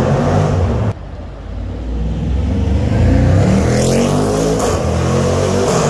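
Jaguar F-Pace SVR's 5.0-litre V8 accelerating hard toward and past, its note rising, echoing in a concrete tunnel. The sound breaks off sharply for an instant about a second in, and there is a spell of crackle from the exhaust as the car goes by.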